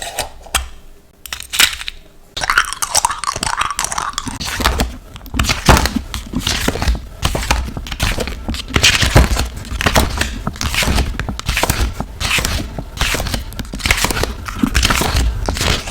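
Sticker sheets being handled and stickers peeled from their backing, close to the microphone: dense crinkling and crackling with sharp tearing strokes, quieter for the first two seconds and then continuous.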